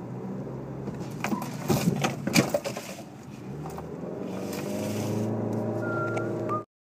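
Car engine and road noise heard inside the cabin while driving, with a few sharp knocks or clicks in the first couple of seconds. The engine's steady hum grows louder in the second half, then the sound cuts off suddenly near the end.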